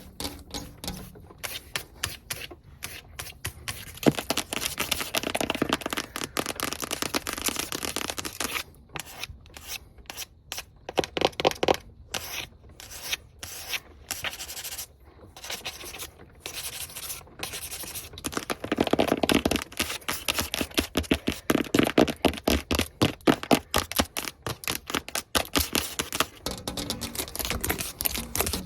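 Long fingernails scratching and tapping fast and hard on a surface, in quick dense strokes that come in runs with short pauses.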